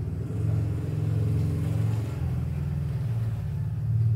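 A motor vehicle engine running close by, low and steady, growing louder about half a second in and again near the end.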